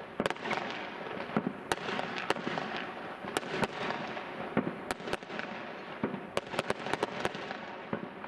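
Aerial fireworks going off across the neighbourhood: a dense, irregular run of sharp bangs and cracks over a continuous wash of overlapping bursts.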